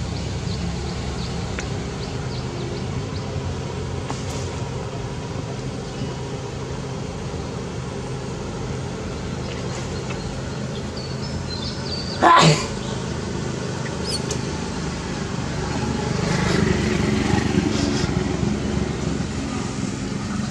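Steady low outdoor rumble of road traffic, with a vehicle swelling past in the last few seconds. One short, sharp knock about twelve seconds in is the loudest sound.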